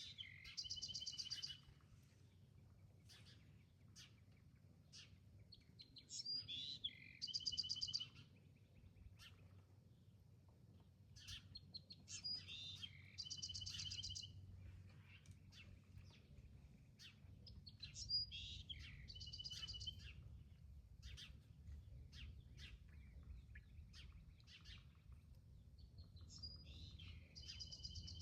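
A songbird singing the same short phrase five times, about every six seconds: a few high notes followed by a fast, even trill. Short faint chips from other birds fall between the songs, over a low steady outdoor rumble.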